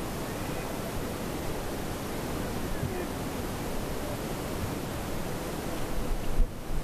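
Steady rushing noise of wind and road over a motorcycle-mounted camera's microphone while riding slowly on a muddy dirt track, with a few bumps and knocks near the end.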